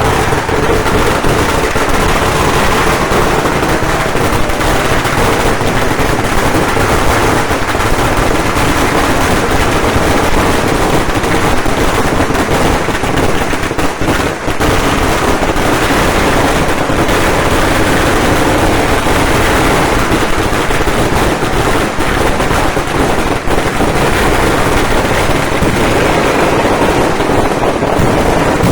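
Firecrackers going off in a dense, unbroken barrage of rapid overlapping bangs, like machine-gun fire, with only a brief dip about halfway through.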